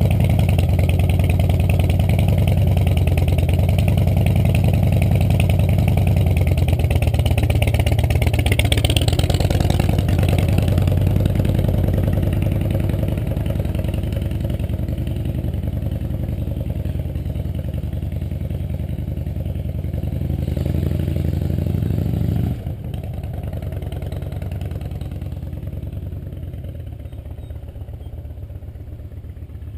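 2009 Harley-Davidson Softail Rocker C's Twin Cam 96 V-twin running at low revs through Vance & Hines Big Radius 2-into-2 exhaust pipes. The sound drops abruptly about 22 seconds in, then fades slowly.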